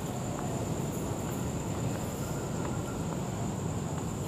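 Steady ambience of a commuter rail station platform: a low rumble with a constant high-pitched whine over it.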